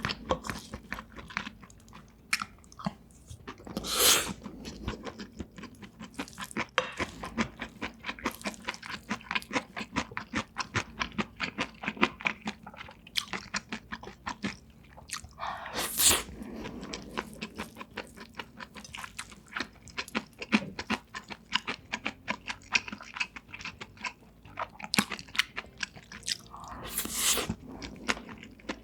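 Close-miked chewing of a Korean home meal of kimchi fried rice, udon and grilled beef belly: a quick, steady run of wet, crunchy mouth clicks. Three times a louder, longer noisy sound rises over the chewing.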